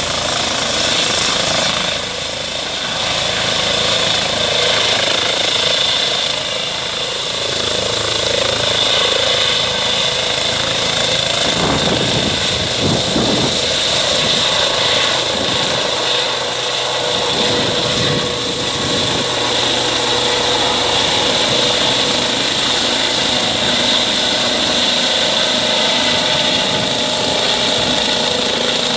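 Eurocopter EC135 P2 helicopter lifting off and climbing away under full power. Its twin turboshaft engines and Fenestron tail fan give a steady high whine over the rotor noise.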